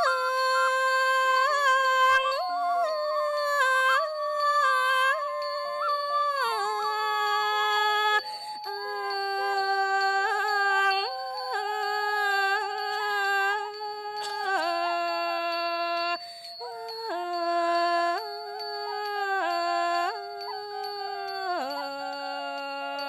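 Thai classical music: a wind instrument plays a slow melody of long held notes that bend and slide from one pitch to the next.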